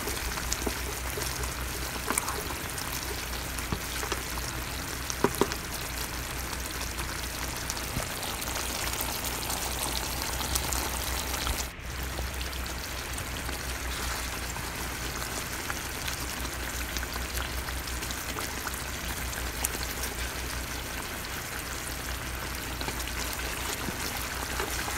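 Green mango pickle in oil and vinegar bubbling and sizzling in a pan, with a few clicks as a wooden spatula stirs it, over a steady low hum.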